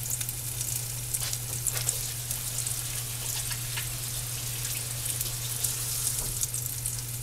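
Leftover mashed-potato patty frying in hot oil in a cast-iron skillet: a steady sizzle with scattered pops and crackles, over a low steady hum.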